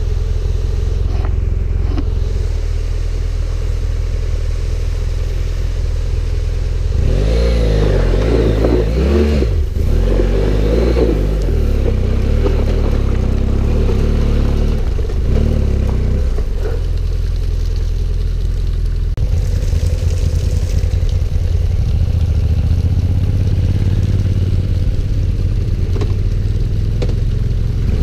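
Adventure motorcycle engine running. About a third of the way in it is revved up and down several times, its pitch rising and falling, then it settles back to a steady run.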